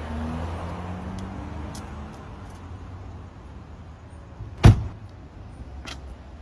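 A car door slammed shut once, a single sharp bang about four and a half seconds in, over a low steady street rumble.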